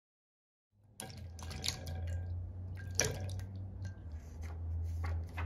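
Wet pieces of canned fruit dropping one by one into a ceramic bowl: a series of soft plops and light taps, the loudest about three seconds in, over a low steady hum. The sound begins about a second in.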